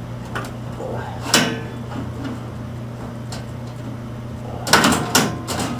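Thin sheet-metal shield cover of a flat-screen TV being lifted and shifted by hand: a sharp metallic click about a second in, then a cluster of clanks and scrapes near the end.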